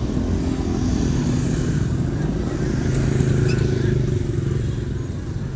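A motorbike engine running close by, growing louder over the first few seconds and then fading, like a bike passing, over a general outdoor rumble.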